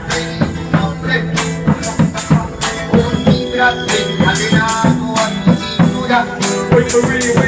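Live acoustic band music with no vocals: pitched instrumental lines over shaken percussion keeping a steady rhythm.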